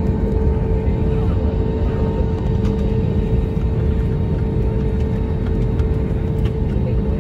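Cabin noise inside an airliner taxiing after landing: a steady low rumble with a constant hum running through it.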